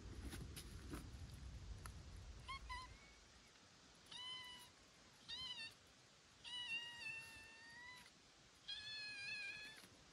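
A young animal's high-pitched mewing cries, five of them starting about two and a half seconds in; the fourth is drawn out longest and the last is pitched higher. A low rumble with a few soft knocks fills the first few seconds.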